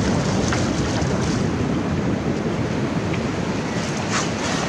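Shallow surf washing over a sandy beach, with wind on the microphone and a few brief splashes from feet wading in the water.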